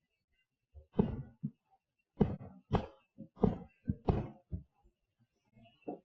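Aerial fireworks going off in quick succession: about ten short booms at irregular spacing, most of them between one and five seconds in, with one more near the end. Each boom dies away quickly.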